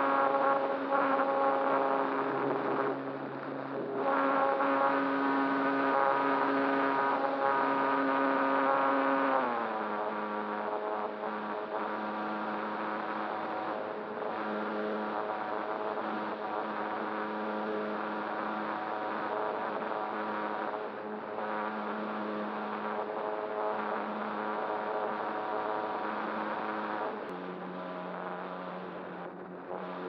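Electric motor and propeller of a radio-controlled ASW-28 glider heard from on board, a steady buzzing whine with air rushing past. The whine glides down in pitch about ten seconds in as the motor slows, then steps lower again near the end.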